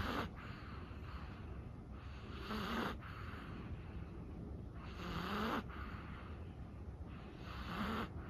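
A sleeping Chihuahua snoring, one noisy breath about every two and a half seconds, each with a low rasping tone.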